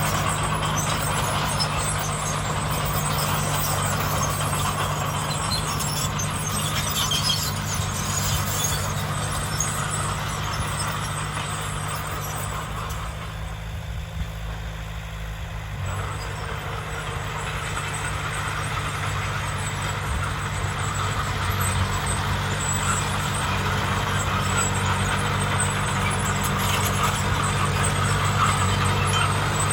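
Heavy diesel earthmoving machinery running steadily with a low engine hum and mechanical noise; the noise eases off briefly about halfway through, then builds back up.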